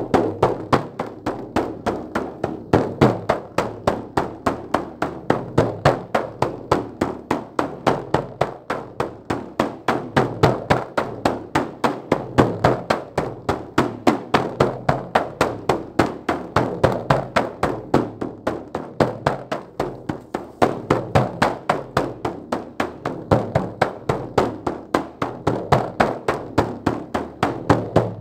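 Large hand-held rawhide frame drum struck with a beater in a fast, steady shamanic beat of about four strokes a second.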